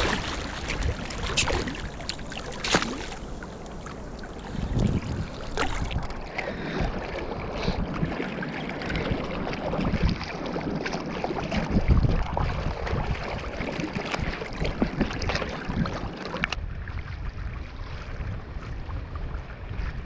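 Water splashing and sloshing as swim fins kick at the surface beside an inner-tube float, in irregular surges, with wind buffeting the microphone.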